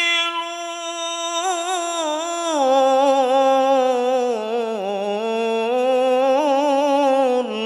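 A man reciting the Quran in the melodic tajwid style, drawing out one long ornamented line whose pitch wavers and steps lower partway through, then breaks off near the end.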